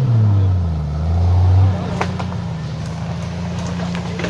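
Off-road vehicle engine working up a steep slope. Its revs fall back from a burst at the start and then hold loud and steady. About a second and a half in the note drops to a quieter steady run, with a few sharp knocks around two seconds in and again near the end.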